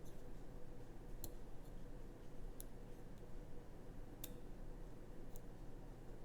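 Faint metallic clicks of a Lishi 2-in-1 NSN14 pick working the wafers of a 2005 Nissan Maxima door lock: four sharp ticks a second or so apart, the third the loudest, over a steady low hum.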